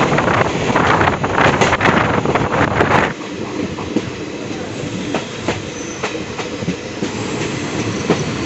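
Nagaland Express passenger train running at speed, its wheels clicking over the rail joints. A loud rushing noise covers the first three seconds and cuts off suddenly, leaving a steadier rumble with scattered clicks.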